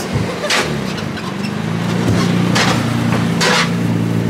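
Toyota Crown's engine running at low speed as the car rolls up close, its low steady note growing louder toward the end. Three short hissing noises come through it about half a second, two and a half and three and a half seconds in.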